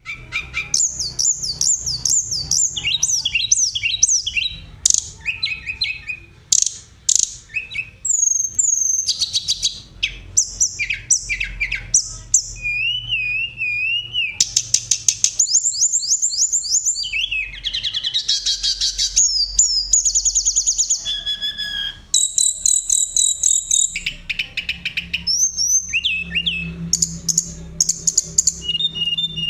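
Tledekan gunung, a Cyornis blue flycatcher, singing a long, varied song. Rapid high whistles, fast trills and sliding notes follow each other almost without a break.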